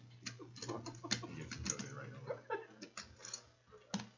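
Faint, irregular light clicks and taps, with low murmured voices underneath and a steady low hum.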